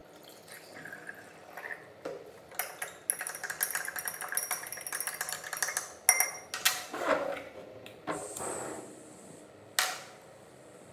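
Metal spatula stirring starch and water in a glass beaker, clinking rapidly against the glass for a few seconds. A few separate knocks follow, then a single sharp tap near the end.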